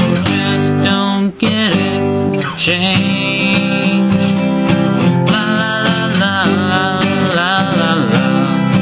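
A man singing with his own strummed acoustic guitar, a solo folk-style song.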